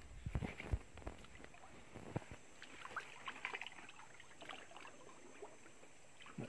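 Faint sloshing and small splashes of shallow swamp water being stirred by hands and legs, with scattered knocks and rustling of leaves and twigs.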